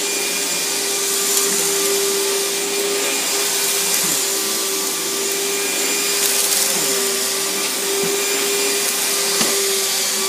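Riccar 100 bagged vacuum cleaner running steadily while being pushed over the floor: a constant motor whine over a dense rush of air, with a few faint knocks along the way.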